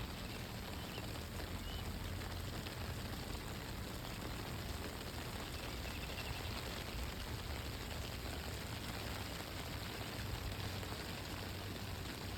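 Steady rain falling, an even continuous hiss with no distinct drops standing out.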